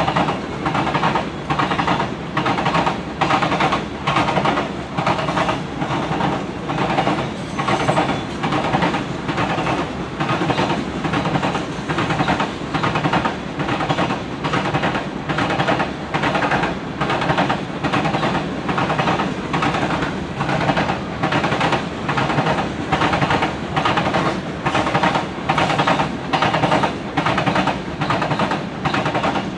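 Freight train's covered hopper cars rolling past, with the steady rumble of steel wheels on rail and an even, repeating clickety-clack as each car's wheel sets cross the rail joints.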